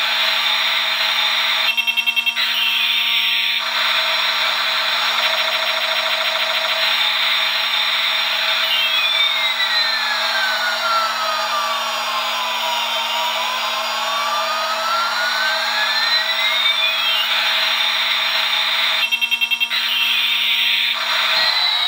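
Battery-operated toy Airbus A380 playing its electronic jet-engine sound effect through its small speaker. It is a steady hissing roar with slow whistling sweeps that rise and fall in pitch. A brief rapid stutter comes about two seconds in and again near the end.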